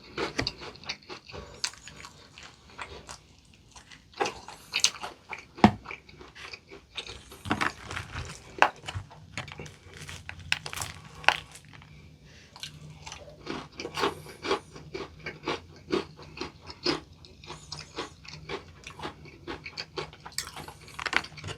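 Close-miked crunching and chewing of potato-crusted fried chicken, with sharp, irregular bites into the crispy coating.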